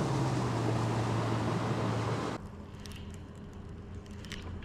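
Bass boat's outboard motor running at speed, with a strong low hum and wind and water rushing past. About two and a half seconds in, it cuts off abruptly to a much quieter steady low hum with a few faint clicks.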